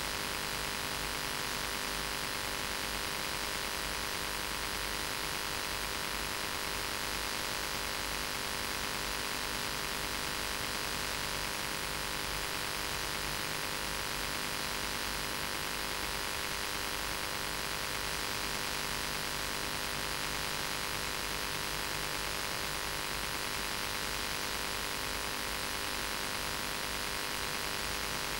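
Steady static hiss with a constant electrical mains hum underneath, unchanging throughout, with no speech audible.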